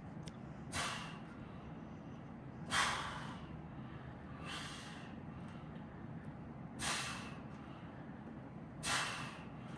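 A man exhaling forcefully in short hard breaths, one about every two seconds, five in all, as he pushes through reps of a dumbbell chest exercise.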